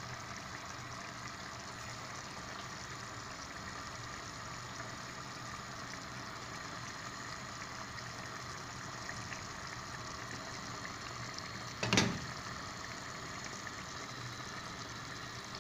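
Tomato and minced-meat sauce simmering in a pot with a little water added, a steady bubbling and sizzling hiss. A single sharp knock about twelve seconds in.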